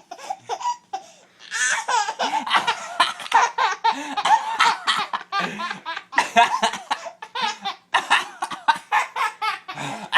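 Young child laughing hard in long, repeated fits, set off by a mock sneeze; the laughing starts about a second and a half in after a short pause.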